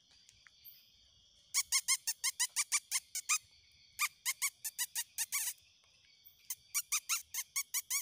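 An animal giving rapid series of short, sharp, high-pitched calls, about six a second, in three bouts, over a steady high insect drone.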